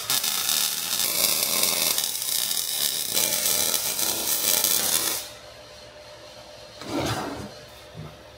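Electric arc welding a steel tube to a steel base plate: a steady crackling hiss that stops about five seconds in. After it, a brief scrape and a light knock as the steel pieces are moved.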